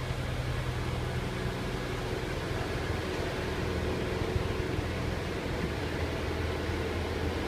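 2007 Volvo XC90's unexplained intermittent noise: a steady mechanical drone with a low hum and a fainter, higher steady tone over it. The dealer could not find its cause.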